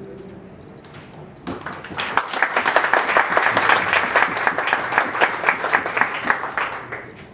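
Audience applauding: a few scattered claps at first, then steady clapping from many hands for about five seconds, dying away near the end.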